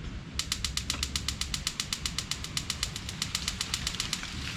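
The gas heater's spark igniter clicking rapidly, about ten sparks a second, while the pilot is held open to bleed air out of the newly connected gas line; it will not light yet because the line is still full of air. The clicking stops shortly before the end and gives way to a steady hiss.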